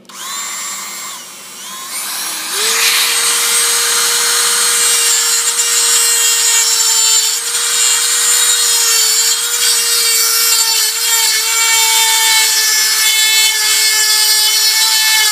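Handheld rotary tool with a cutting wheel grinding metal, cutting through a spot weld on a motorcycle exhaust flapper valve to remove it. The tool settles about two and a half seconds in into a steady high whine under the grinding.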